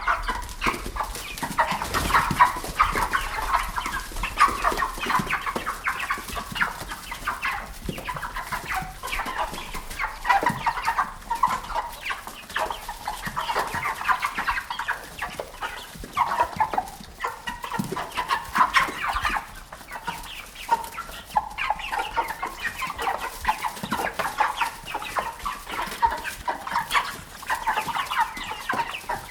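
A flock of chickens clucking continuously, many short calls overlapping one another.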